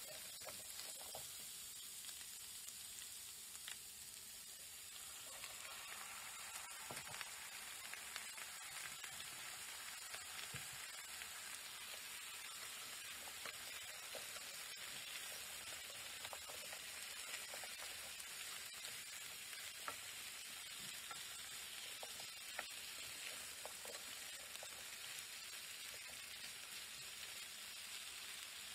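Chunks of potato, carrot and shallot, then pieces of chicken, sizzling in a frying pan while a wooden spatula stirs and turns them, with small knocks and scrapes against the pan. The sizzle grows stronger about five seconds in.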